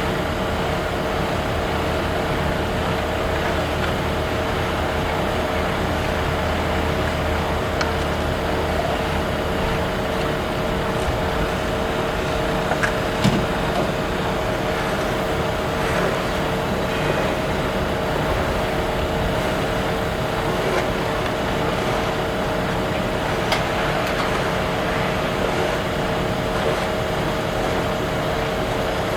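An engine running steadily at a constant speed, with a steady hum, and a couple of light knocks about thirteen and twenty-three seconds in.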